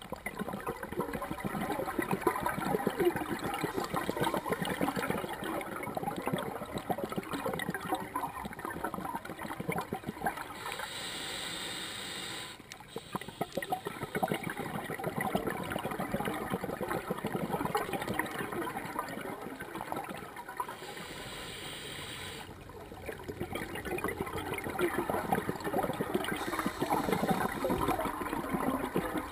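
Scuba regulator breathing heard underwater: long stretches of exhaled bubbles gurgling and crackling, broken about eleven seconds in by a brief hiss of an inhalation through the regulator.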